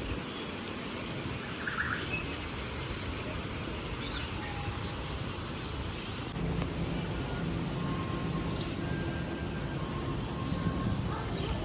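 Steady outdoor background noise with a few faint, short bird chirps; the background shifts abruptly about six seconds in, becoming slightly louder with a low hum.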